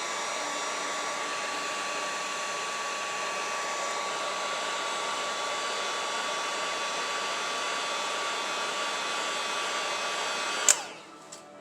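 Hot-air blower running steadily: a rush of air with a thin steady whine, heating the iPhone X screen to soften the adhesive and loosen the earpiece. It is switched off with a sharp click near the end.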